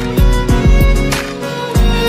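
Background music: a held melody over a steady beat with low thumps.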